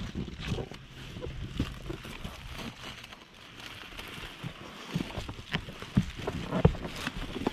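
Rustling and handling of a roll of GAF Stormguard leak-barrier membrane being positioned on a roof, with scattered knocks and a few louder thumps in the last couple of seconds.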